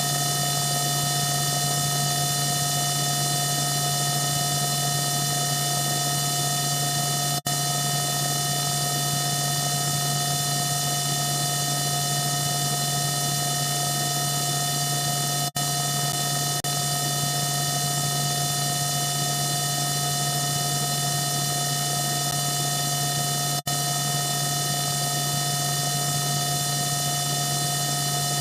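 Steady electronic hum with a thin, buzzy ladder of high tones over a bed of hiss, unchanging in pitch and level. It cuts out for an instant three times, about eight seconds apart, like the seams of a loop.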